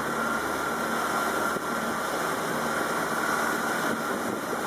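Small passenger boat's engine running steadily under an even rush of wind and water noise.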